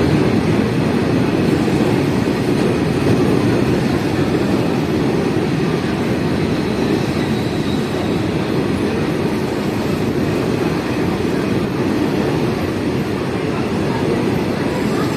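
Goods train rolling past, a steady loud rumble of wheels on the rails.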